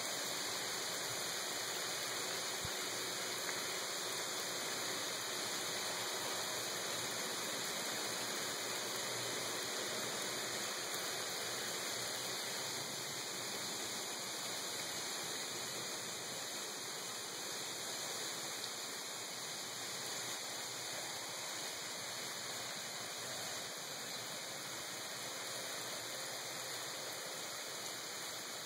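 Steady hiss of wintry precipitation, a mix of graupel and snow, falling and striking the wet patio, wooden table and covered grill.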